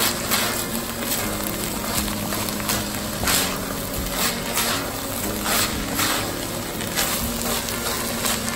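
Wooden spoon stirring and scraping frying minced meat in an enamelled pot, a rasping stroke about once or twice a second. Soft background guitar music runs underneath.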